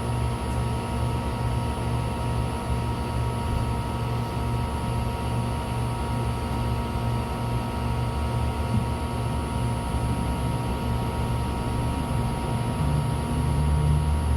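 MAZ-303E23 electric bus under way, heard from inside: a steady low road rumble under several constant whine tones from the electric drive. The rumble swells briefly near the end.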